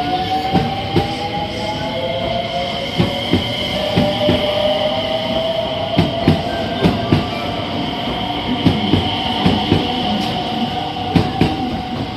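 Electric commuter train pulling out of the platform and gathering speed past the camera. Its motor whine rises slowly in pitch, and the wheels clack over the rail joints again and again.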